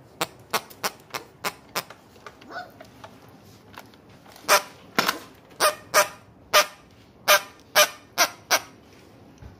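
Squeaker in a plush dog toy being squeezed over and over, giving a string of short, high honking squeaks. They are quicker and softer at first, then louder and evenly spaced about every half second.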